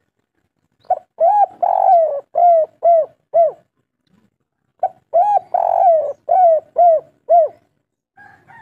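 Spotted dove singing its 'kuk 3' song: two phrases of about six short, rounded coos each, with a pause of over a second between them.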